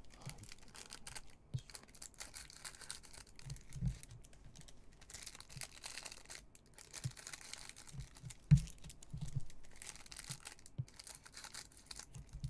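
Plastic trading-card pack wrapper crinkling and tearing as gloved hands open it, with a few soft knocks against the table. One sharp knock comes about eight and a half seconds in.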